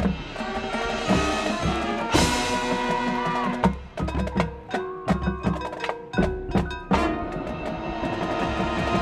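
Marching band playing: sustained wind chords over drums and front-ensemble percussion, with a loud accented hit about two seconds in.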